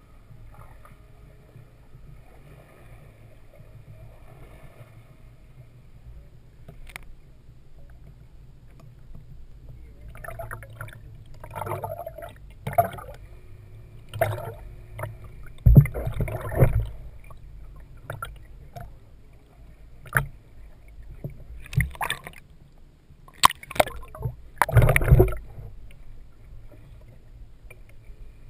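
Sound heard through an underwater camera's housing: a low steady rumble of water, then from about ten seconds in a run of irregular knocks and bumps, the loudest a little past halfway and again near the end.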